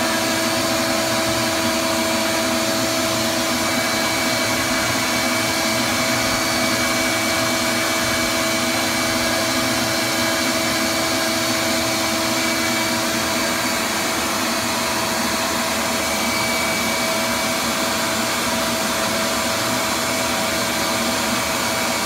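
Bee vacuum running steadily while its hose nozzle is held against a cluster of honey bees, a constant motor hum with a steady whine.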